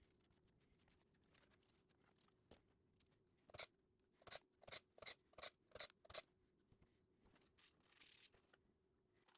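Quiet workshop handling sounds: a run of about seven short, crisp strokes, roughly three a second, in the middle, over a faint steady hum.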